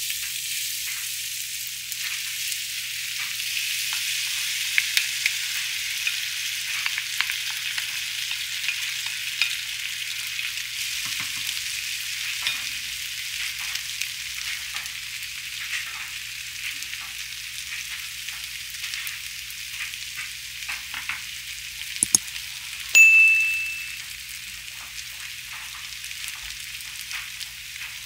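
Grated potatoes sizzling in hot olive oil in a frying pan, starting the moment they are tipped in, with light clicks and scrapes from a wooden spatula. Near the end comes a short, high electronic beep, and the sizzle is quieter after it.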